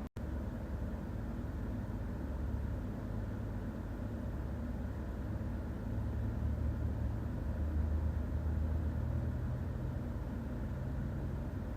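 Steady low rumble that swells for a few seconds in the second half, after a brief dropout at the very start.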